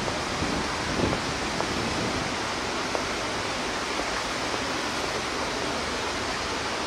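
Steady rushing hiss of a fountain jet spraying into the river.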